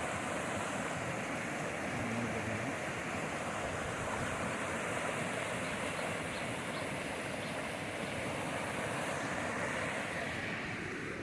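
Steady rushing of water flowing in a stream.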